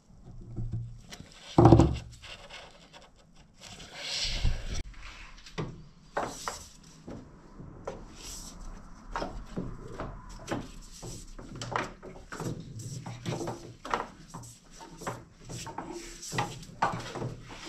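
Workshop handling noises as a rubber fuel-line hose and fittings are worked on a car: one loud thump about two seconds in, then a steady run of irregular clicks, knocks and rubbing as the hose is fed down through the engine bay.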